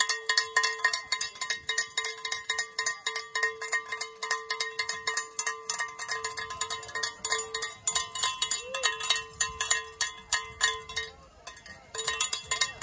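A cowbell rung rapidly and without let-up, several ringing strikes a second, to cheer on racers. It stops briefly about eleven seconds in, then starts again.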